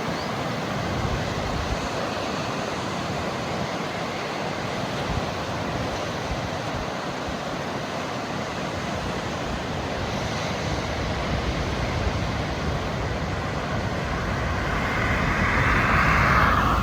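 Ocean surf washing onto the shore in a steady wash of noise, with a wave breaking louder near the end. Wind rumbles on the microphone.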